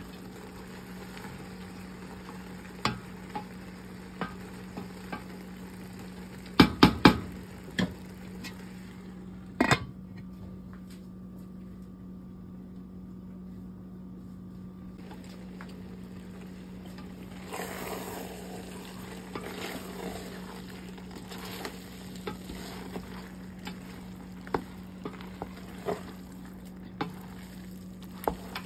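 A spatula scraping and tapping against a stainless steel pot as rice is spread and later stirred together with beef, with a cluster of loud metal clanks about seven seconds in and a quieter stretch in the middle. A steady low hum runs underneath.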